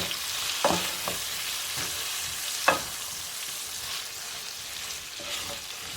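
Chicken cubes sizzling in a pot of garlic-butter sauce while a spoon stirs them, with a steady hiss and a few clicks of the spoon against the pot, the sharpest nearly three seconds in.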